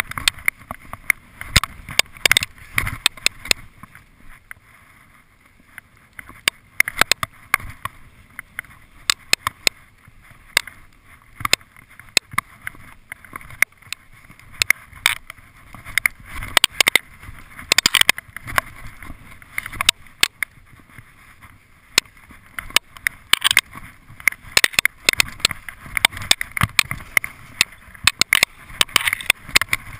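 Skis running through deep fresh powder snow: a steady rushing hiss broken by frequent irregular sharp knocks and clatters.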